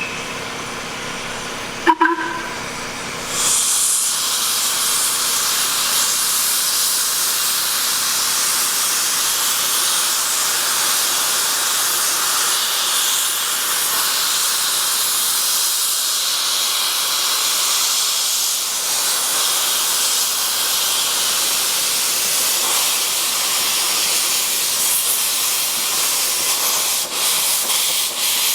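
Miniature-gauge steam locomotive blowing off steam, a loud steady hiss that starts about three and a half seconds in and holds to the end. A brief toot sounds just before it, about two seconds in.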